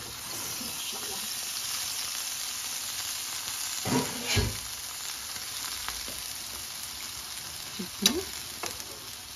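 Chicken tikka skewers sizzling steadily in oil and their own released juices in a large frying pan. There are two dull knocks about four seconds in, and a sharp click near the end as tongs touch the skewers.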